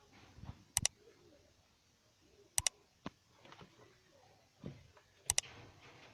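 Birds calling faintly and low, broken by three sharp double clicks about two seconds apart.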